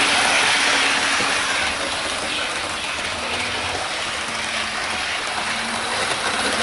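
Hornby OO gauge Class 395 Javelin model train running at high speed around a layout: a steady rushing whirr of its wheels on the track and its motor, a little louder in the first second and easing slightly after.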